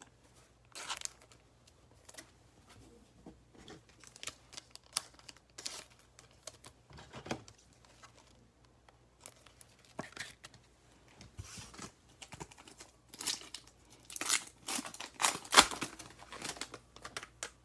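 Foil wrapper of a Panini Mosaic football card pack crinkling and tearing as it is ripped open by hand, with cards being handled. The tearing and crinkling is densest and loudest near the end.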